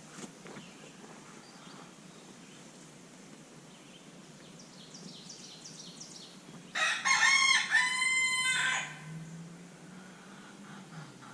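A rooster crows once, a loud call of about two seconds in the middle, with faint high bird chirps just before it.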